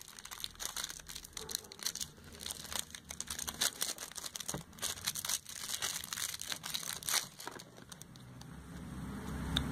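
Thin plastic packaging crinkling in irregular crackles as a plastic-bagged lip product is handled. The crackling thins out near the end as a low steady rumble rises.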